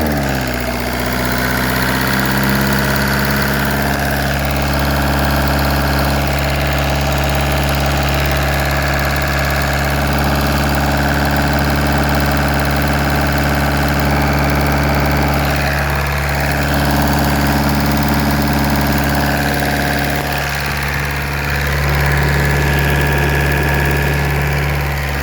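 VW 1.9 TDI (BLS) four-cylinder diesel settling from a rev to a steady idle, running with the knock that is taken to be a fault in the engine.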